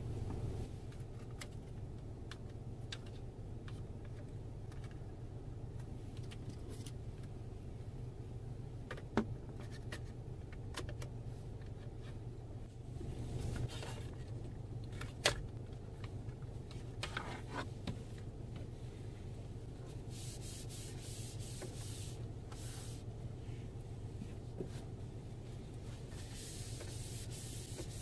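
Hands handling a plastic dashboard phone holder in a car: scattered clicks, two of them sharp snaps about nine and fifteen seconds in, and bursts of rubbing and scraping, over a steady low hum. Near the end a wipe rubs across the dashboard with a hissing rub.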